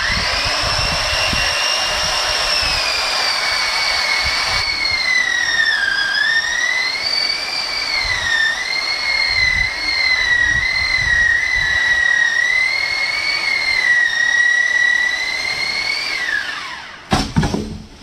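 Chainsaw cutting through a coconut palm trunk. Its high whine sags in pitch under load several times and recovers, then winds down near the end, followed by a short burst of knocks.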